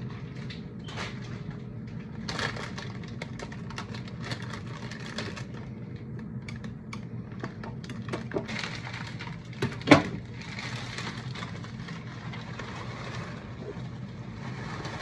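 Plastic flower-bouquet sleeves crinkling and rustling as they are handled and pulled off, with scattered clicks and one sharp snap about ten seconds in.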